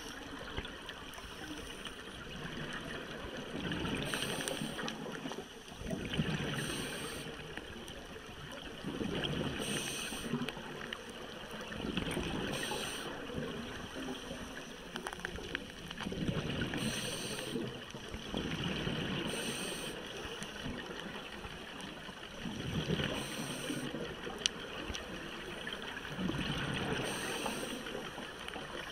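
Underwater ambience dominated by scuba regulator breathing: a hiss and gurgling rush of exhaled bubbles that swells and fades every few seconds.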